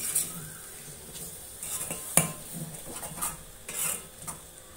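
A spatula stirring pieces of goat lung in a kadai, scraping and knocking against the pan, over a light sizzle of the meat sautéing. The sharpest knock comes about two seconds in.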